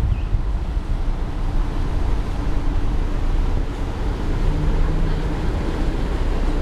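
Wind buffeting the microphone, with the low steady drone of a river barge's engine underneath.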